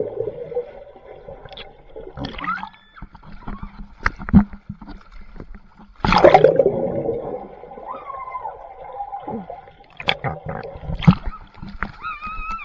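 Swimming-pool water splashing and sloshing, with one heavy splash about halfway through, and a few short high voice-like calls that rise or fall in pitch.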